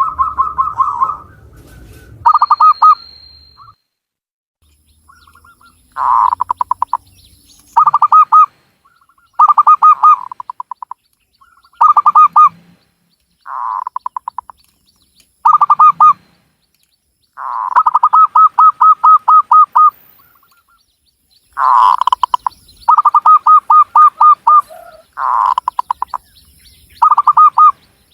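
Zebra dove (Javanese perkutut) cooing: repeated phrases of rapid, trilled coo notes at a steady pitch, each phrase about a second long with short pauses between, one longer run about two-thirds of the way in.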